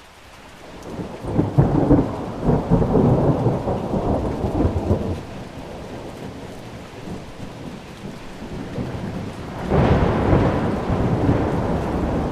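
Thunderstorm: rain falling steadily, with a long rolling rumble of thunder building in about a second in and dying away by five seconds, then a second peal breaking near the end.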